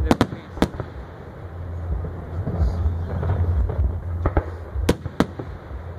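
Fireworks display: aerial shells bursting with sharp bangs, two or three in quick succession in the first second and three more near the end, over a steady low rumble.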